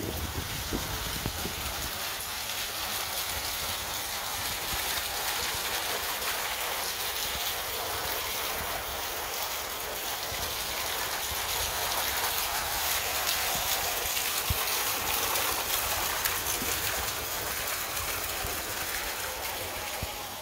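A steady hiss of noise that swells a little toward the middle.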